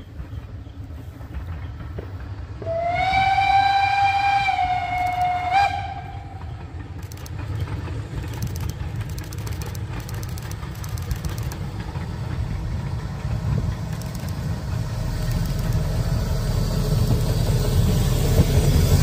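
Mansfelder Bergwerksbahn steam locomotive Lok 11 blows one long whistle of about three seconds, dipping slightly in pitch at its end. It then approaches with a low rumble that grows steadily louder as it passes close by, pulling its coaches.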